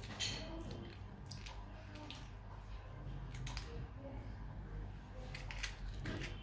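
Faint, scattered clicks and taps of small tools and phone parts being handled during a smartphone screen repair, over a low steady hum.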